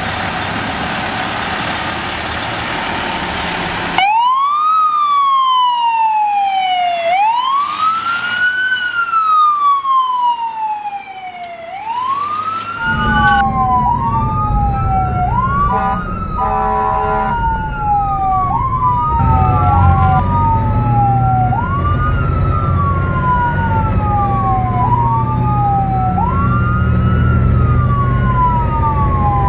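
Emergency-vehicle electronic sirens wailing, the pitch rising and falling about every two seconds. Later two sirens wail out of step over engine and road rumble, and a horn sounds briefly partway through.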